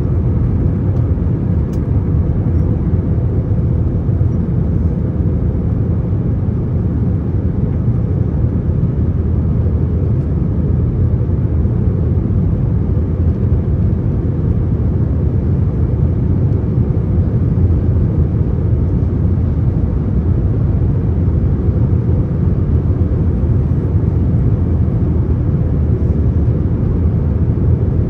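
Steady low roar inside the passenger cabin of an Airbus A321: engine and airflow noise.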